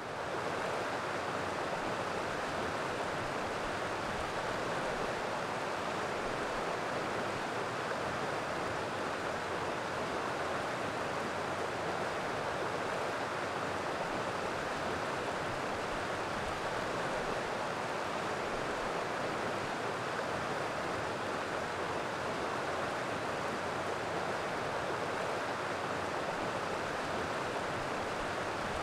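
Steady rushing of a shallow river riffle running over rocks.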